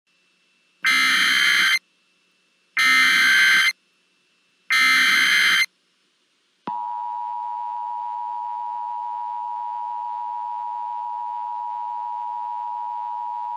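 Emergency Alert System tones: three short, harsh data bursts of the SAME header, each about a second long and about a second apart. About a second after the third, the steady two-tone EAS attention signal starts and holds.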